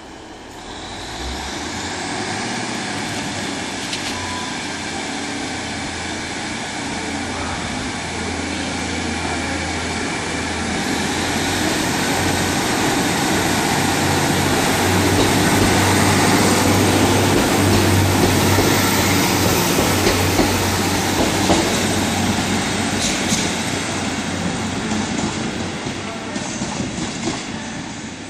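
Class 150 Sprinter diesel multiple unit pulling away from a station, its underfloor diesel engines running under power with a steady low drone. It grows louder as the train draws past, then fades as it goes away, with a run of clicks from the wheels over rail joints and points near the end.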